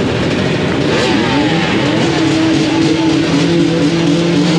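A mass of enduro dirt bikes revving their engines at once, a loud, dense racket of rising and falling revs. From about two seconds in, one engine is held at steady revs to the end.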